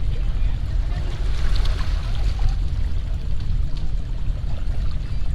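Steady low rumbling noise, with a few faint clicks above it.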